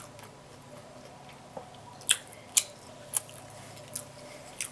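Open-mouth chewing of a mouthful of burger, with a handful of sharp, wet mouth smacks coming mostly in the second half.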